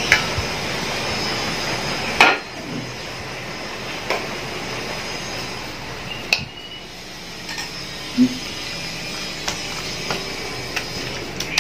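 Dishes knocking and clinking against a stainless steel mixing bowl, a handful of sharp knocks with the loudest about two seconds in, as raw chicken pieces are tipped into masala paste and worked in by hand. A steady hiss sits underneath.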